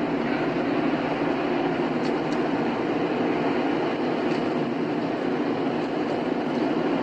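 Steady road and engine noise of a car cruising on a highway: an even rumble that holds the same level throughout.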